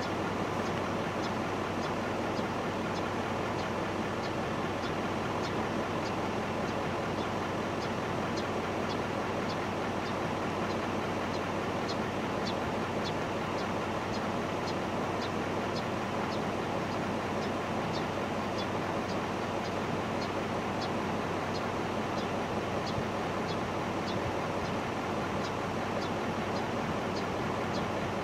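Steady rushing outdoor noise, with a high, short chip repeated about twice a second.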